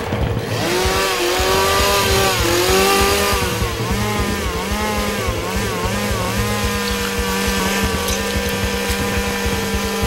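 A small engine running loud, its pitch rising and falling again and again as it revs, then holding steadier near the end.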